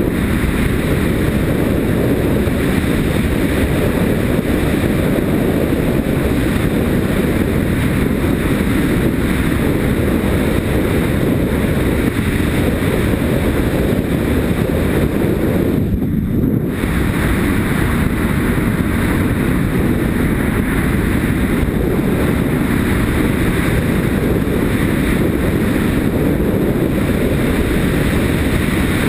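Yamaha Ténéré motorcycle riding along a gravel track, heard mostly as a steady, heavy rush of wind over a helmet-mounted GoPro HD camera, with the engine running underneath. The wind briefly eases about halfway through.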